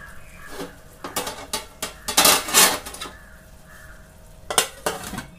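A metal utensil clinking and scraping against a metal cooking pot of rice, loudest a little after two seconds in. Near the end the pot's metal lid clanks down into place.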